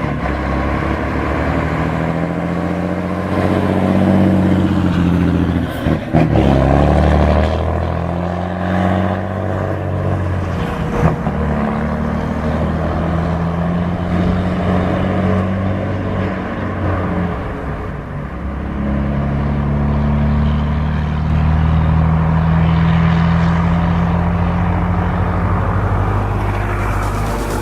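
Heavy truck's diesel engine running hard, its pitch stepping up and down several times, with short breaks about six, eleven and eighteen seconds in.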